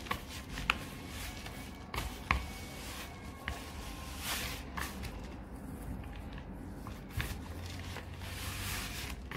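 A hand pressing and kneading a dry dough of ground rice flour and sugar, with no water added, in a plastic bowl: faint gritty rustling and squishing with a few light clicks.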